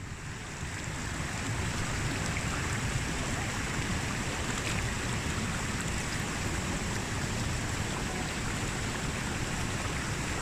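Steady rush of water from a mountain stream, fading in over about the first second.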